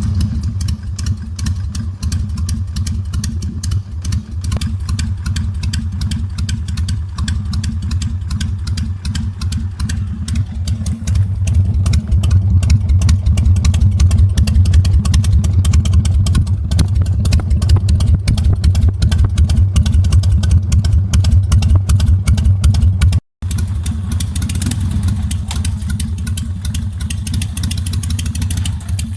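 Carbureted Harley-Davidson Sportster V-twin idling as it warms up, a steady run of fast exhaust pulses. It gets louder for a stretch in the middle, and the sound cuts out for a split second near the end.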